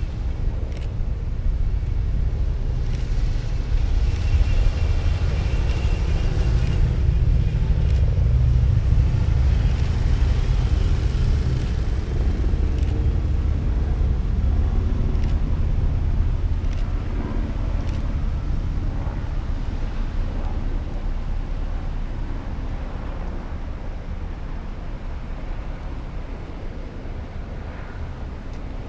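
Police patrol cars and SUVs driving past one after another, engine and tyre noise rising to its loudest in the middle and easing off near the end.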